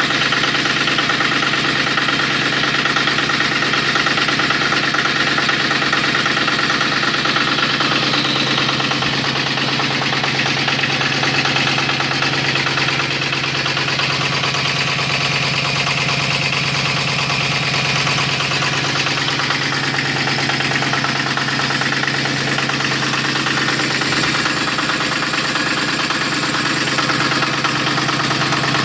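Honda E4000 V-twin diesel generator running steadily at an even speed.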